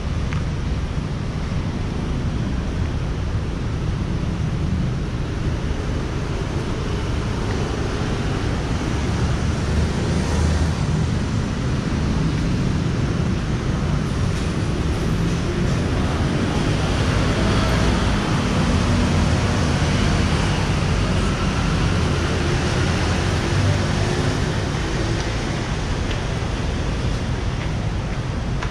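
Steady road traffic on a busy city street: a continuous rumble of passing cars and engines with no break, growing a little louder for a while past the middle.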